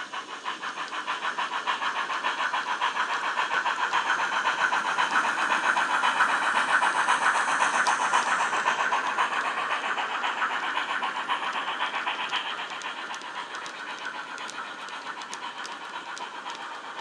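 Sound-decoder steam chuffs from a double-headed pair of Bachmann/Model Rail USA tank locos fitted with Wheeltappers DCC sound, played through the models' small onboard speakers. Rapid, even exhaust beats grow louder as the locos approach, peak about seven seconds in, then fade as they pass.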